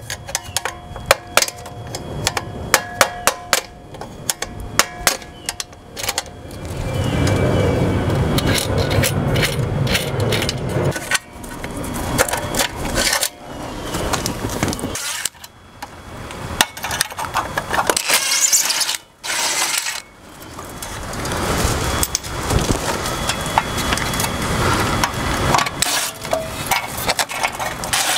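Quick sharp hammer taps on the old pool timer's metal box, a few a second, for about the first six seconds; then uneven scraping, rattling and handling noise as the box and its wiring are worked loose.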